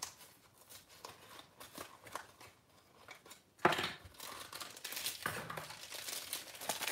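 Small cardboard blind box opened by hand: faint rustling, then a sudden loud rip about three and a half seconds in. From about five seconds on comes steady crinkling of the thin plastic bag that was inside.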